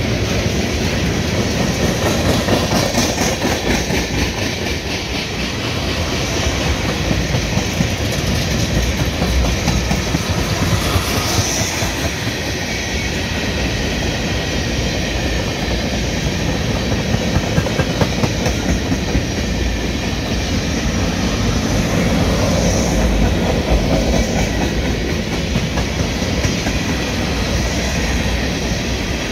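Freight train of boxcars and tank cars rolling steadily past close by, its steel wheels clacking and rumbling on the rails without a break.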